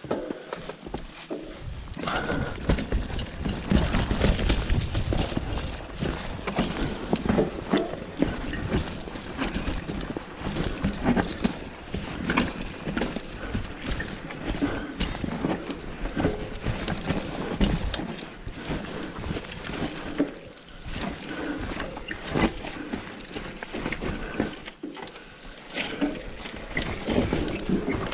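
Water sloshing and splashing close to the microphone, irregular and continuous.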